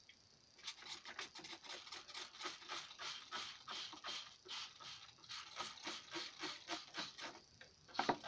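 Water glugging out of a thin plastic bottle into a paper filter funnel, with a quick, irregular run of crackling clicks as air gurgles back into the bottle, starting about a second in. A sharper knock comes near the end.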